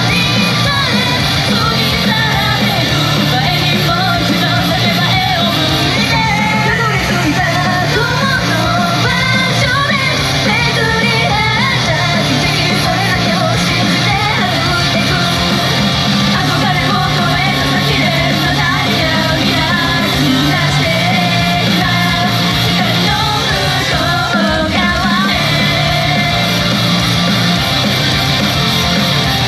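Idol group singing live over loud, dense pop-rock music with a steady beat, in a large hall.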